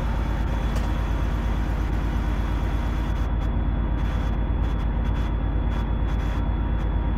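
Six-cylinder Detroit Diesel Series 60 12.7-litre engine of a Freightliner Columbia truck running steadily, heard from inside the cab while its injectors are being tested with a diagnostic laptop.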